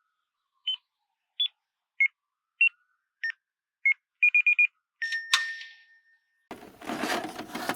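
A series of short electronic beeps at changing pitches, about one every two-thirds of a second, then a quick run of four beeps. A sharp hit with a lingering tone follows about five seconds in, and a dense noisy sound starts about a second later.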